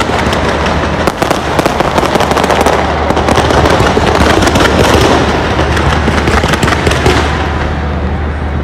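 Fireworks display going off in rapid succession: a dense, continuous stream of bangs and crackles.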